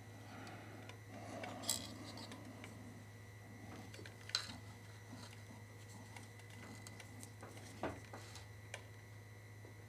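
Light handling noise of a circuit board and soldering iron during desoldering: a few sharp metallic clinks, about two seconds in, around four and a half seconds and again near eight seconds, with soft rustling between them. A steady low hum runs underneath.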